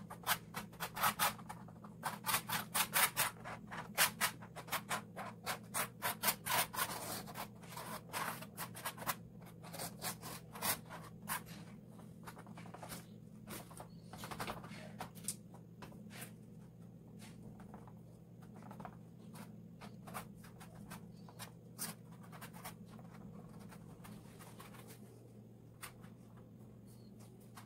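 Epoxy resin being spread over a stretched painting canvas by hand: quick rubbing and scraping strokes, several a second for the first ten seconds or so, then fewer and further apart.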